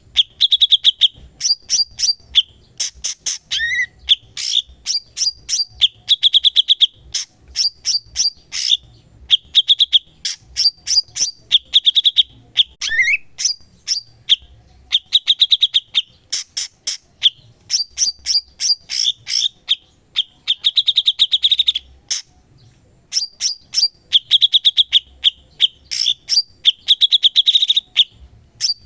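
A cucak cungkok singing non-stop: a rapid chatter of sharp clicking notes run into buzzy trills, in short phrases repeated every second or two, with an occasional rising slurred note.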